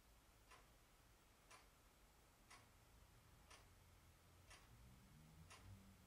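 Near silence with a faint, regular tick about once a second, like a clock ticking.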